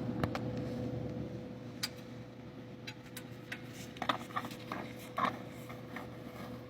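A steady mechanical hum with a constant tone, and scattered clicks and knocks, more frequent in the second half.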